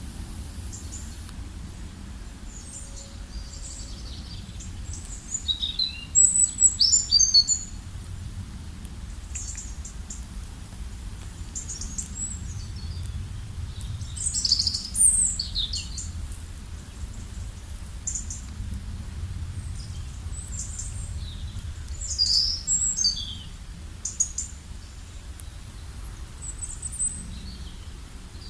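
Songbirds chirping and singing in short bursts, loudest about six seconds in, midway and again about two-thirds through, over the steady low rumble of a river.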